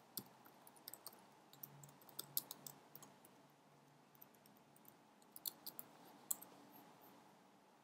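Faint computer keyboard typing: scattered key clicks in small clusters.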